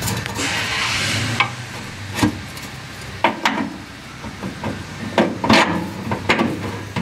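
Hand tools working on the upper mounting bolt of a rear shock absorber on a pickup: a brief hiss in the first second or so, then scattered metallic clicks and knocks as the bolt is fitted and tightened.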